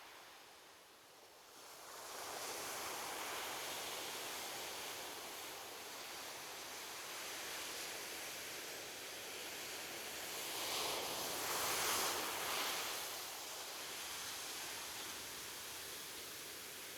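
Ocean surf: soft waves washing onto a beach as a steady hiss. It swells about two seconds in and again, loudest, around the twelfth second as a wave breaks, then eases back.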